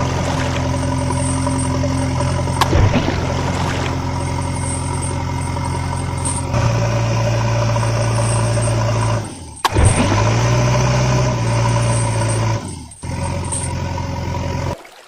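Vehicle engine running steadily, its hum jumping abruptly in pitch and loudness several times, with a sharp click about ten seconds in, and cutting off just before the end.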